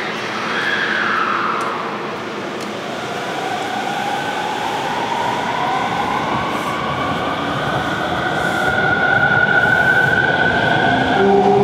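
Electric commuter train pulling out of the station, its traction motors whining in several tones that rise in pitch as it accelerates, growing louder.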